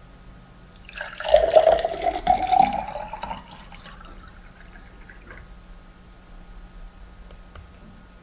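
Liquid poured into a container. A loud splashing stream about a second in carries a tone rising in pitch as it fills. After about three seconds it tails off into a thin trickle and a few drips.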